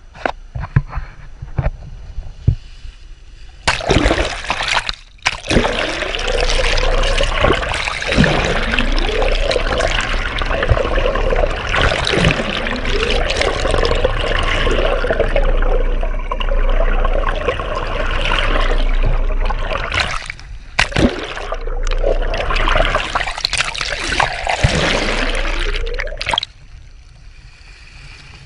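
Water splashing and sloshing hard alongside a sportfishing boat, with a hooked blue marlin on the leader. It starts a few seconds in and runs for about twenty seconds with two short breaks, then drops off shortly before the end.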